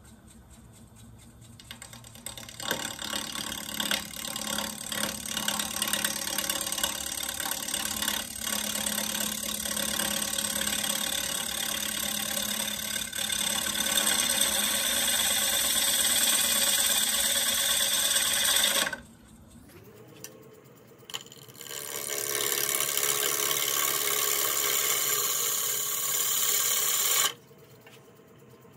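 Half-inch swept-back bowl gouge cutting a spinning walnut-and-cherry bowl blank on a wood lathe: a loud, steady shearing hiss of wood being cut. The cut stops suddenly about two-thirds in, starts again a few seconds later and stops again near the end.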